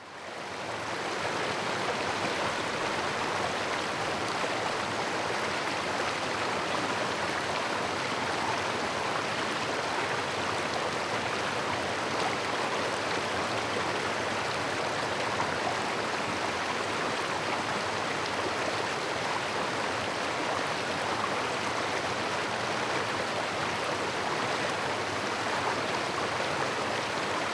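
Waterfall: a steady, unbroken rush of falling water, fading in over the first second.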